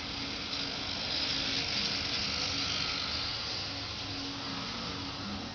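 A steady low hum with an even hiss behind it, like a small motor or appliance running; no distinct events.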